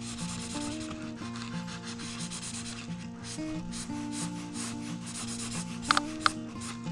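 Marker tip rubbing back and forth across paper in short shading strokes, with two sharper scratches near the end, over quiet background music.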